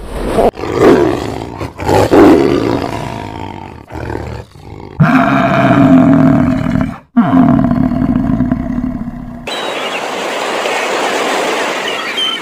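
Bison bellowing: two long, deep roars, the second cut off suddenly and followed by a steady hiss.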